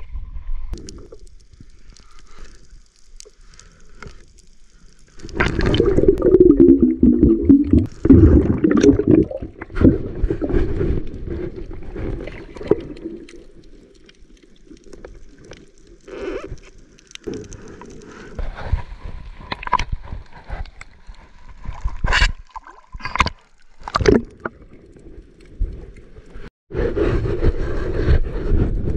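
Muffled gurgling and sloshing of water heard underwater, loudest a few seconds in and again near the end. A few sharp knocks come in between.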